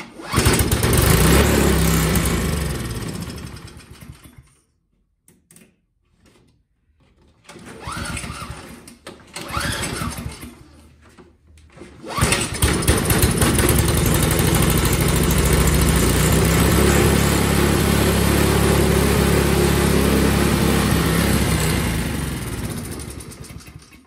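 Craftsman single-stage snowblower's four-stroke engine starting and dying, again and again. It catches and runs for about four seconds, then winds down; it sputters briefly twice, then catches again about halfway through and runs for about ten seconds before dying near the end. This is typical of a carburetor that is still too dirty to run right after cleaning.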